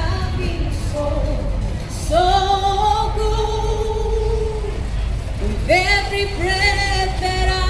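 Music with a singer holding long, wavering notes over a steady low backing, a long held note in the middle and a new phrase starting near the end.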